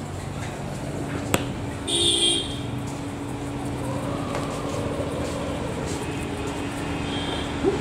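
Steady rumble of road traffic, with a single sharp click just over a second in and a short, louder high-pitched burst about two seconds in.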